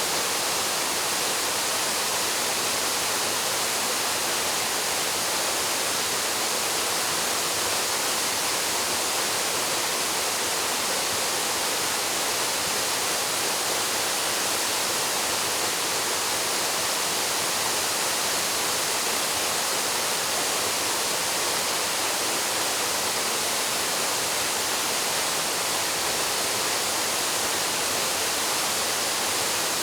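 Waterfall plunging into a pool, a steady, unbroken rush of falling water with the most energy in the hiss.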